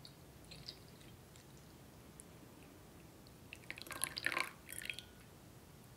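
Milk tea poured from a glass teapot into a glass mug, quiet at first; about three and a half seconds in, as the stream thins and the pour ends, there is a short cluster of drips and light glass clinks.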